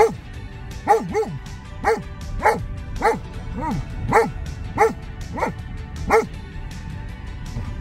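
German Shepherd dog whining and yipping inside a car: about ten short high calls, roughly two a second, each rising and then falling in pitch, stopping a little after six seconds in. Background music plays underneath.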